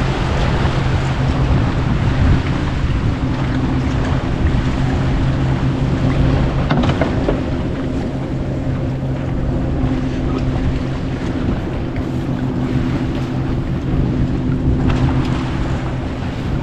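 90 HP Johnson outboard motor idling steadily, with wind on the microphone and water noise around the boat. A brief click about seven seconds in.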